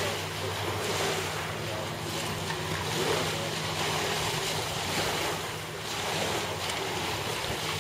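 Small waves washing on the beach with wind on the microphone, over a steady low hum.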